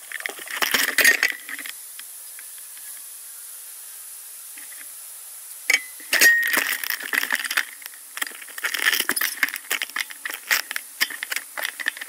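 Light metallic rattling and clinking from a bicycle being ridden: a short spell at the start, a quiet stretch, then steady rattling again from about six seconds on.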